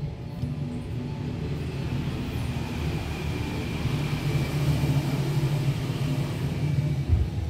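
Low rumble of a vehicle passing, swelling in the middle and fading near the end.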